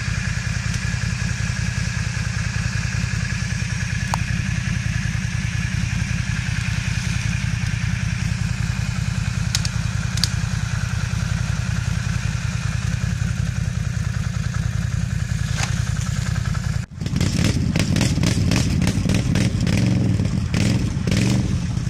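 ATV engine running steadily at low revs. After a sudden cut near the end it is louder and rougher, with rapid clattering as the quad pushes through shallow swamp water.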